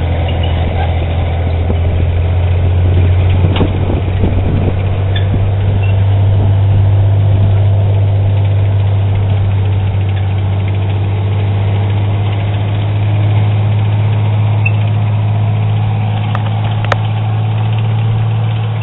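M5 High Speed Tractor's six-cylinder gasoline engine idling steadily, with a deep, even running note. A few light clicks come about four seconds in.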